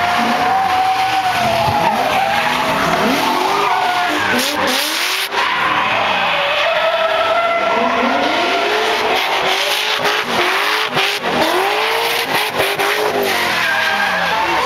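A drift car sliding with its tyres squealing and skidding while the engine is revved up and down. The pitch keeps swooping up and down every second or so.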